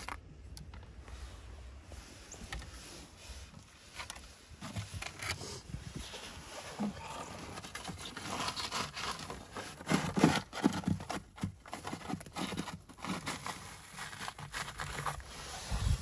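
A piece of whiteboard scraping and scooping dead honey bees across the wooden floor of a hive, with irregular rustling and light knocks, busiest a little past the middle.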